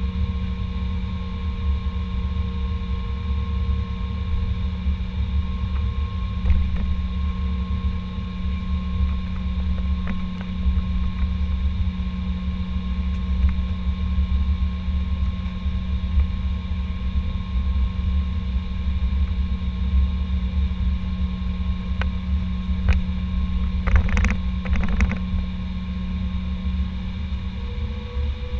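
Cabin noise of an Airbus A320 on the ground: a steady engine and air-conditioning drone with a low rumble and several steady whines. A few short clicks come about 24 seconds in, and near the end one of the whines starts to rise in pitch.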